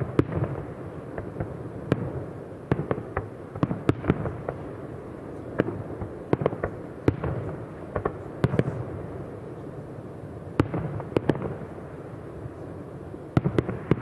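Aerial fireworks shells bursting overhead in an irregular series of sharp bangs, several a few seconds, with a low rumble between them.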